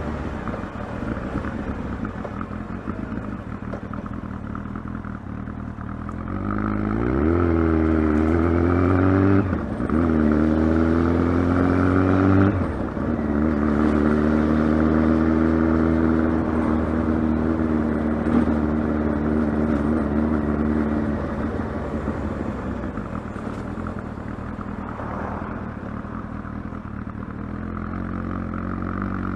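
Kawasaki ZX-12R's inline-four engine running. It starts low and steady, then rises in pitch about seven seconds in, dips briefly and climbs again. It drops back and holds a steady note for several seconds, eases lower, and starts to rise again near the end.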